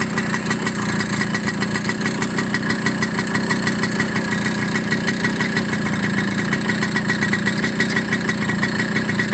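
Motorcycle engine idling steadily, with an even, rapid beat.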